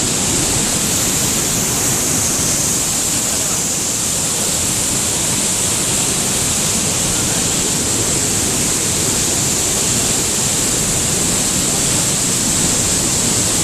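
Pailón del Diablo waterfall: a large waterfall's water crashing down in a loud, steady rush that does not change.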